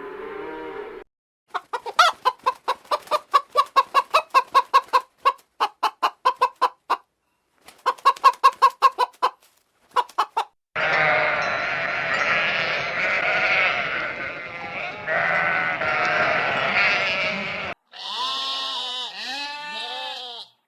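A string of farm animal calls: the tail of a cow's moo, then a run of short quick calls about three or four a second, a dense chorus of many animals calling at once, and a few arching calls near the end.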